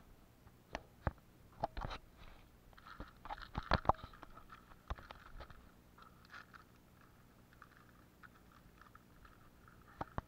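Young tame jackdaw pecking and rummaging at hanging gear: scattered sharp beak taps and clicks over light scratching and rustling, with a cluster of taps about four seconds in and two more near the end.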